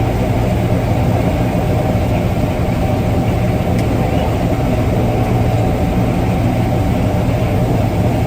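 Gleaner R62 combine running steadily while harvesting soybeans, heard from inside the cab: an even engine and machinery drone with a constant low hum and a faint steady whine.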